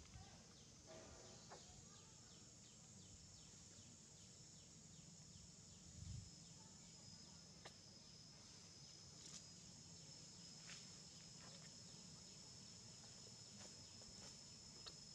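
Near silence with faint insects buzzing and chirping steadily, plus a soft low thump about six seconds in.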